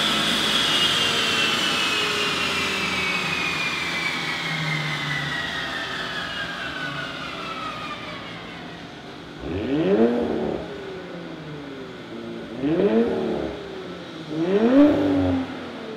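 Audi B9 RS5's twin-turbo V6 through the AWE Touring Edition exhaust with factory catalysts, winding down on a chassis dyno after a pull. A high whine falls slowly in pitch as the sound fades, then the engine gives three short revs near the end.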